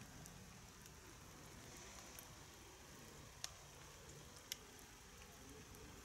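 Near silence: faint outdoor background with a low rumble, broken by two short clicks, one a little past halfway and one about a second later.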